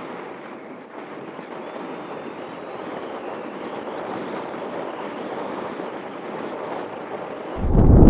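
Steady rushing wind noise. Near the end, much louder gusts batter the microphone with a low rumbling buffet.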